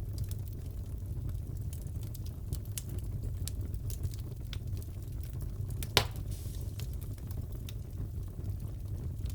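Wood fire crackling in a fireplace: a steady low rumble with scattered small crackles and one sharp pop about six seconds in.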